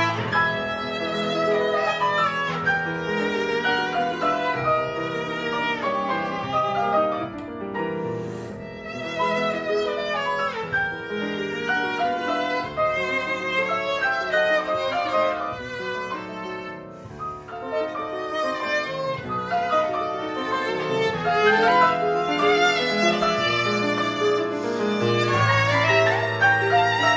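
Viola played with the bow over piano accompaniment, a continuous passage of classical chamber music. It eases to a softer stretch a little past the middle, then grows fuller and louder with deep piano notes near the end.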